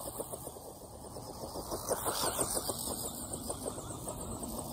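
Tamiya Grasshopper II electric RC buggy running over grass: its motor and gears whining, with a fast rattle as it bounces across the turf.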